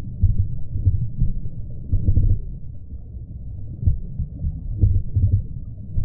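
Muffled low rumble and irregular soft thumps of stream water heard through a camera partly submerged at the waterline, with none of the splash or hiss of water heard in air.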